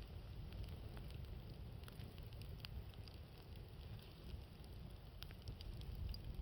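Wood fire crackling with scattered sharp pops and ticks, over a steady low rumble of wind.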